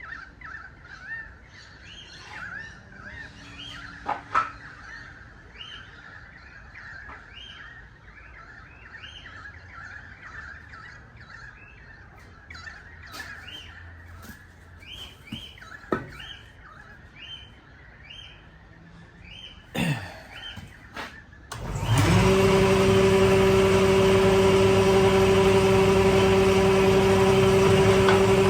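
Birds chirping over and over, with a few sharp knocks. About 22 seconds in, an electric power tool starts up and runs steadily, much louder than the birds.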